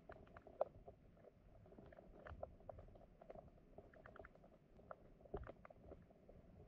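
Flowing stream water heard underwater: faint, irregular clicks and crackles over a low rumble.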